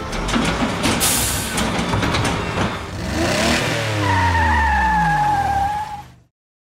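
Cartoon vehicle sound effects: an engine revving with clatter, then falling sweeps in pitch and a steady high tone, all cutting off suddenly about six seconds in.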